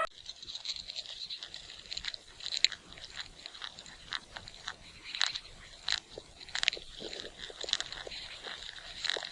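An animal chewing and crunching food: irregular crisp crunches, a few louder than the rest.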